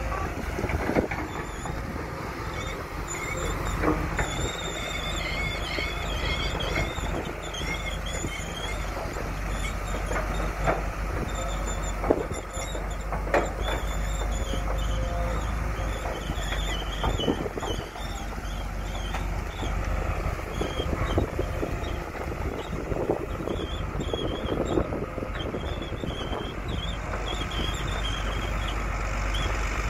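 Caterpillar crawler excavators working: a steady low engine rumble with a wavering high squeal through most of it, and scattered short knocks.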